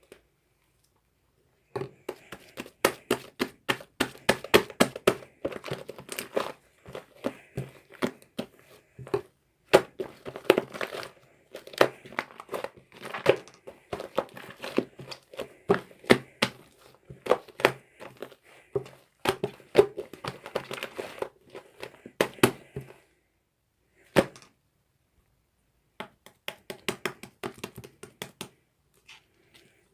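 Slime with shaving foam worked into it, squeezed and kneaded by hand, giving dense runs of quick sticky pops and crackles. It goes quiet for a moment about three-quarters of the way through, then a few more pops follow near the end.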